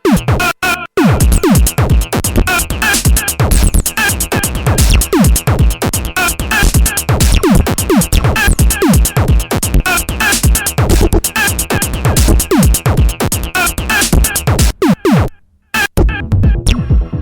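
Electronic dance music with a fast, steady drum-machine beat, dropping out briefly about fifteen seconds in before coming back.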